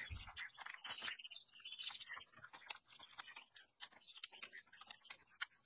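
Screwdriver working the screws of an old electric motor's cast-metal end housing: faint, irregular metal clicks and short scrapes as the screws are turned out.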